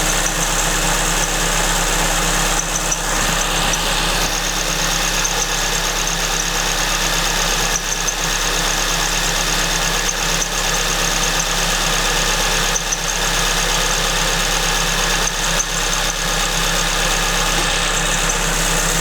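Supercharged Suzuki Swift Sport (ZC31S) engine at cold idle, with a steady high-pitched chirping squeak from the supercharger's V-belt at the main pulley. The squeak is typical of a belt slipping while the engine is still cold.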